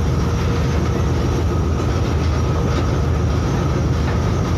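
Steady low drone of a large passenger river launch's engines under way, heard from inside its cabin, with a faint steady whine above it.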